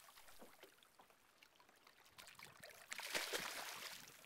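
A hooked bass thrashing and splashing at the water surface. A few small splashes come first, then a loud burst of splashing about three seconds in.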